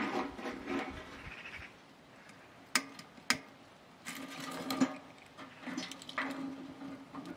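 Dry sticks knocking and scraping against a tin-can wood stove as kindling is pushed into it, with two sharp clicks about a second apart near the middle. A steady low hum comes in at about four seconds.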